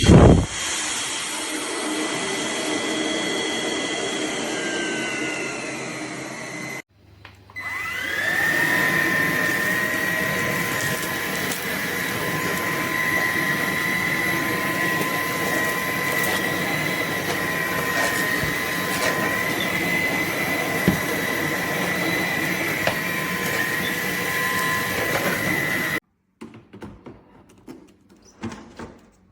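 Roborock H60 Ultra cordless stick vacuum running with a high steady whine, which slides down in pitch and stops after about seven seconds. It starts up again a moment later, its whine climbing to a steady pitch, and runs evenly until it cuts off abruptly a few seconds before the end. A sharp click sounds at the very start.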